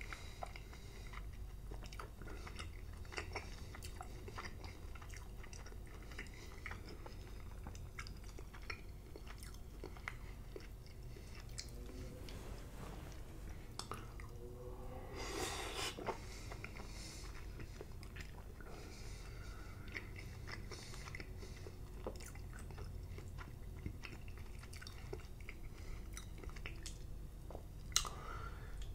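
Close-miked wet chewing of slimy cooked spinach, with many small mouth clicks and smacks. A bigger bite comes about halfway, and a sharp clink near the end as the metal fork hits the glass bowl.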